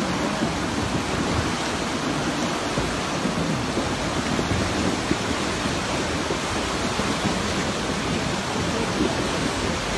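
Muddy flash-flood torrent carrying debris down a mountain stream channel: a steady rushing of churning water with no let-up.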